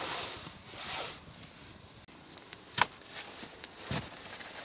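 A small wood campfire being fed with twigs and kindling sticks: rustling of dry twigs, then a few sharp cracks and snaps, the loudest a little under three seconds in.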